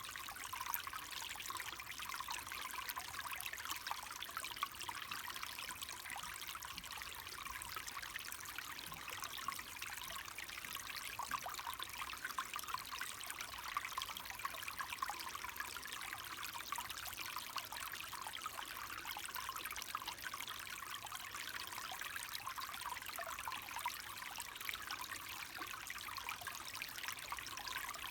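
Clear mountain stream babbling steadily, a dense patter of small splashes and trickles high in pitch with no deep rumble.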